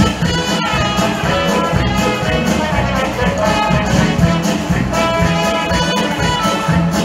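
Upbeat show music led by brass instruments over a steady beat.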